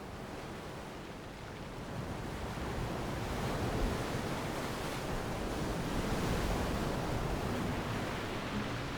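Ocean surf breaking on the shore: a steady wash of waves that swells about two seconds in and is loudest a little past the middle.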